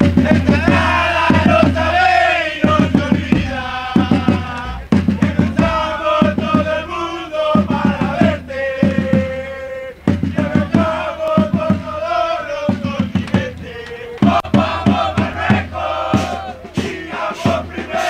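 Football supporters chanting together in unison, backed by a bass drum beaten in a quick, steady rhythm.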